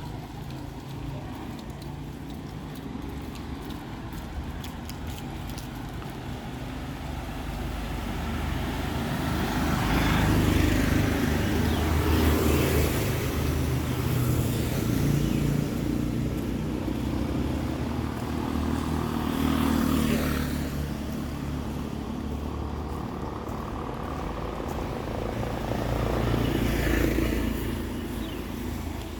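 Street traffic: motor vehicles passing close by one after another over a steady low engine hum. The engine sound swells and fades several times, loudest about a third of the way in.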